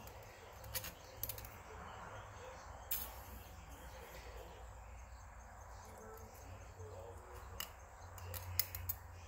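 Faint scattered clicks and light scraping of thin steel oil-ring rails being worked out of a piston's ring groove by hand, with more clicks near the end, over a low steady hum.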